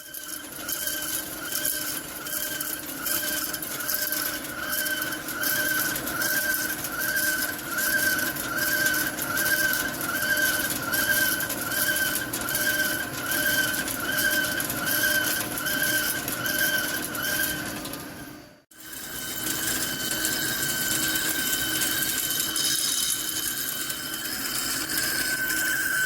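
Hankook heavy-duty CNC lathe turning a forged steel pinion shaft, the cutting insert giving a steady whine that swells and fades about three times every two seconds. After a brief break the whine carries on steadily, without the pulsing.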